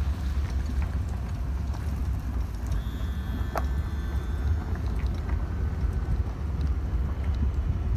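Steady low rumble of wind buffeting the microphone and road noise from a boat being towed on its trailer behind a pickup truck.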